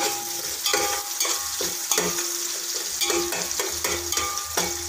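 Sliced onions sizzling as they fry in hot oil and ghee in a large metal pot, stirred with a long metal spoon that clinks and scrapes against the pot about a dozen times, each clink leaving a short ring from the pot.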